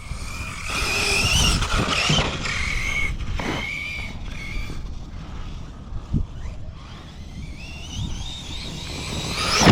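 Electric RC basher's brushless motor whining, the pitch rising and falling as it speeds up and backs off the throttle, with a couple of short knocks along the way.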